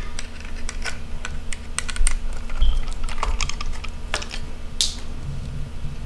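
Irregular light clicks and small knocks of a screwdriver and a hard plastic bracket being handled as a screw is backed out, with a short high squeak about halfway through.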